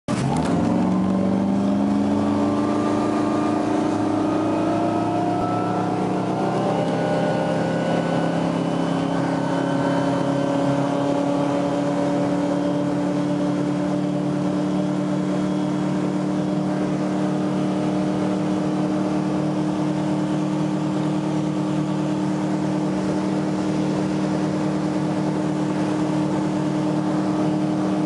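2006 Reinell 200 LSE runabout's engine accelerating under throttle, its pitch rising over the first several seconds, then running steadily at about 4,000 rpm with the boat at speed.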